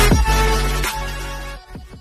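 Channel intro music with deep bass and falling pitch sweeps, fading out near the end.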